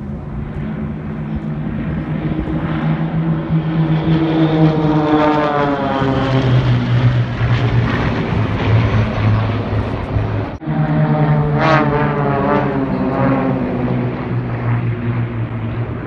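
A formation of small aerobatic propeller planes droning overhead, their engine pitch dropping as they fly past. This happens twice, and the sound breaks off abruptly once about ten seconds in, between the two passes.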